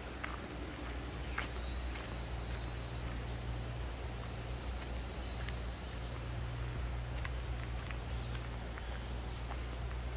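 High-pitched insect chorus, swelling and fading in repeated pulses in the second half, with a long wavering high note from about two to five seconds in. Under it runs a steady low rumble, with a few faint footsteps on leaf litter.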